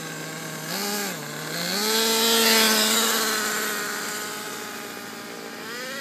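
Radio-controlled car's motor running with a buzzing whine that rises in pitch briefly about a second in, then again for a longer stretch from about two seconds in, with a rushing hiss at its loudest, before settling back lower near the end.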